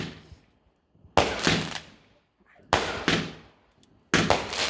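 Garden fireworks going off in sharp bangs that come in pairs, three pairs about a second and a half apart, each bang trailing off in a fading echo.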